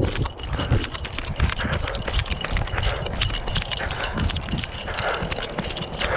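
Footsteps on a concrete sidewalk heard through a chest-mounted action camera: a run of irregular thumps and knocks from the footfalls and the jostling mount.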